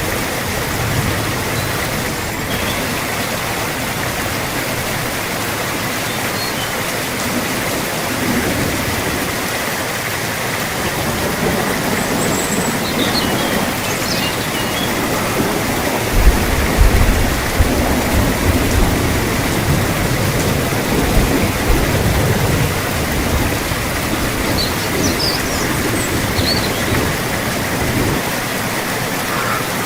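Steady rain falling hard. A low rumble swells about halfway through, and a few faint high chirps sound now and then.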